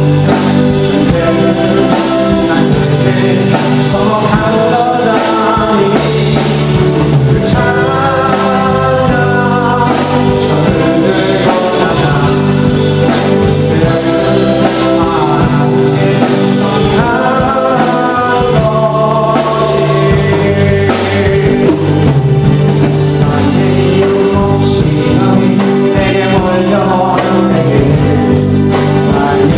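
Live church praise band playing a worship song: singing over electric guitar, keyboard and a drum kit.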